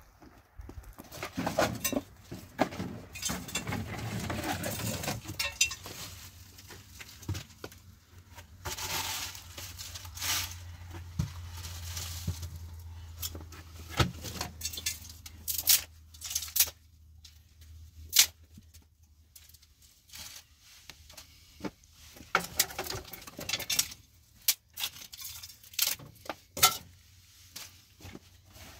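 Irregular clinks and knocks of objects being handled, with short noisy stretches between them.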